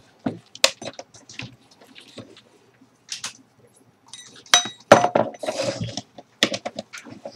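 Tools and hard objects being handled: scattered clinks and knocks, with one sharp metallic clink that rings briefly about four and a half seconds in and a flurry of knocks just after it.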